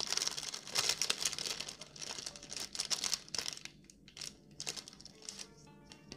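Thin clear plastic sleeve crinkling as hands handle it, with a dense crackle that thins out and grows quieter in the last couple of seconds.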